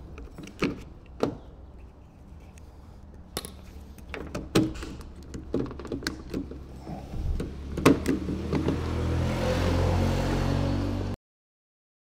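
Renault Megane door being handled: a scattered series of sharp clicks and knocks from the door and its mechanism, then a steady motor-like whir for about the last three seconds before the sound cuts off suddenly.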